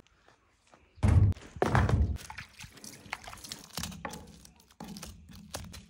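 Two heavy thunks about a second in, then a run of quick scrapes and clicks as a knife scales a fish on a wooden plank.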